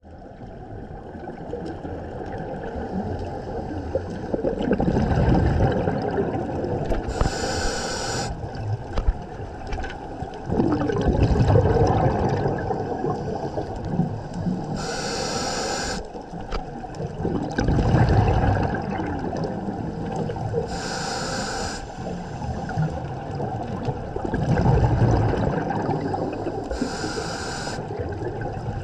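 Scuba diver breathing through a regulator underwater: four slow breath cycles, each a rumbling gush of exhaled bubbles followed a couple of seconds later by a short hiss of the regulator on the inhale.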